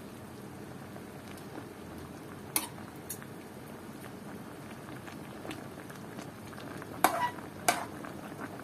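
Pot of chicken feet and drumsticks in palo broth simmering with a steady bubbling. A metal ladle stirs the pot and clinks sharply against it several times; the two loudest clinks come near the end.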